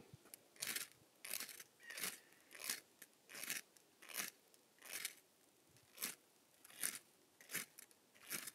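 Ferro-rod fire starter scraped hard with a striker over tinder, about eleven sharp scraping strokes a little under a second apart, trying to throw sparks to light a campfire.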